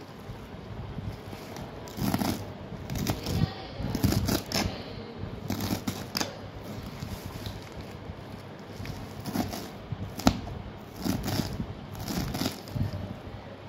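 A kitchen knife slicing through a bunch of fresh spinach on a cutting board: crisp crunching cuts through the stems come in irregular bursts. About two-thirds of the way through, the blade knocks sharply once on the board.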